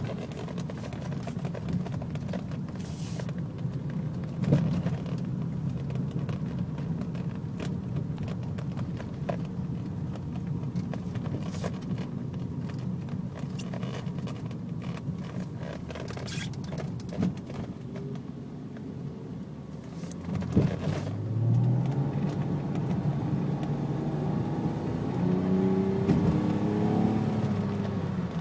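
Car engine running with a misfire: an uneven idle with irregular sharp knocks. It is revved up about two-thirds of the way through and held at higher revs near the end.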